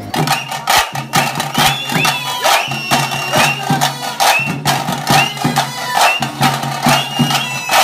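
Outro music with a fast, steady percussive beat over a bass line, and a high melody line that slides up and down.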